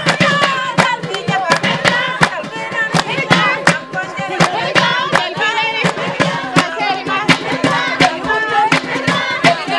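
Background music: voices singing over a steady percussion beat.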